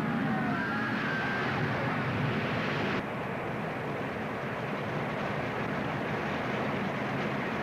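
Steady roar of rushing floodwater from an old film's soundtrack, a dense wash of noise with a few faint wavering tones in the first second. About three seconds in it cuts abruptly to a slightly quieter, duller roar.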